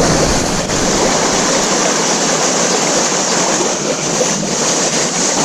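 River current rushing steadily, an even wash of moving water.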